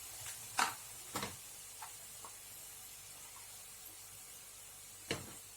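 Peanuts, cumin and ground black pepper frying in ghee in a pan with a faint, steady sizzle. Light knocks sound twice in the first second or so and once near the end.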